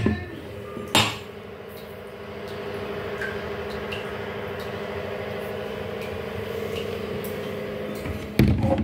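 Knocks from a carved wooden door being handled: one as it starts, another about a second in, and a louder thud near the end. Between them a steady mechanical hum runs on.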